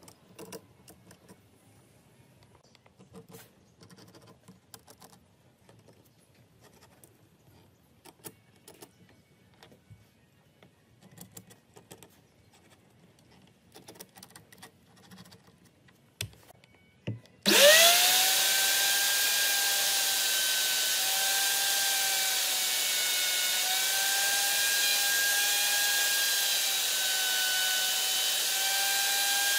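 Faint taps and scratches as small wooden bowtie keys are set on a wooden slab and traced around with a pen. About halfway through, an electric plunge router starts with a quick rising whine and then runs loud and steady, dipping slightly in pitch now and then as it cuts the recesses for the bowtie keys.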